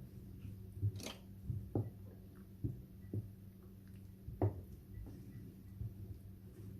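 A spoon working through thick barley-grits porridge (belboula) in a cooking pot once milk has been added, making irregular soft knocks against the pot about once a second. There is one sharper, brighter knock about a second in.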